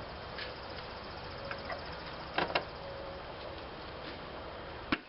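Wiring connector pushed onto a van's blower motor resistor, with two sharp plastic clicks about halfway through as it latches and another click near the end, over a steady background hiss.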